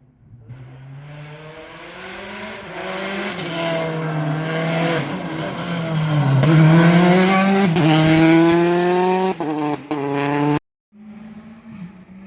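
Rally car engine at full throttle approaching and growing louder, its pitch climbing through several quick upshifts, with brief lifts of the throttle near the end. The sound then cuts off suddenly and a second car's engine is heard more faintly.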